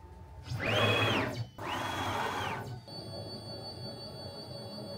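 Stepper motors of a Onefinity Woodworker CNC driving its ball-screw axes in two short jog moves. Each move is a whine that rises in pitch as the motors speed up, holds, then falls as they slow to a stop. From about three seconds in, soft background music with long held tones plays.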